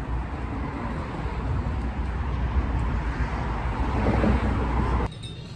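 Road and wind noise heard inside a moving car: a steady rushing sound that swells slightly and then cuts off suddenly about five seconds in.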